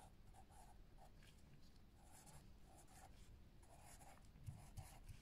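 Faint pencil scratching on paper in short separate strokes as numbers are written down, with a few soft taps near the end.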